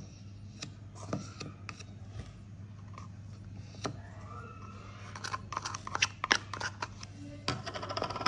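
Plastic spatula scraping cream out of a plastic jar and knocking against a plastic bowl: a string of small clicks and scrapes, busier and louder in the second half, over a steady low hum.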